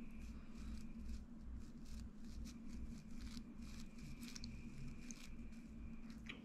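Faint rustling and small clicks of fingers handling tinsel flash and thread while tying a pompano teaser, over a steady low hum and a faint high whine.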